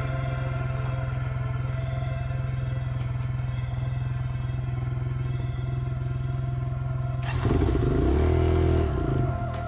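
Dirt bike engine idling steadily, then revved about seven seconds in, its pitch rising and falling as the bike pulls away.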